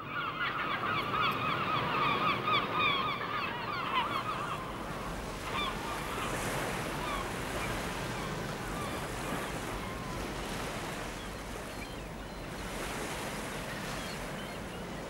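A flock of birds calling rapidly over one another for the first four or five seconds, then a steady wash of surf breaking on a beach.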